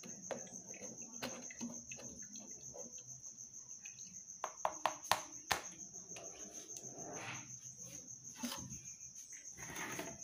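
A cricket chirping in a steady, evenly pulsed high trill throughout. Over it, a wooden spoon scrapes in a metal mesh sieve held over a plastic blender jar, with a few sharp taps about halfway through, the loudest sounds.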